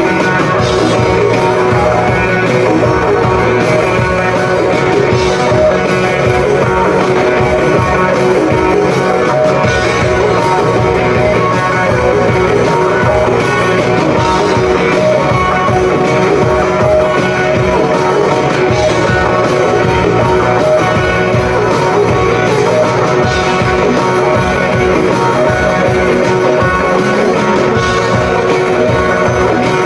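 A rock band playing live, with guitar prominent, loud and steady throughout.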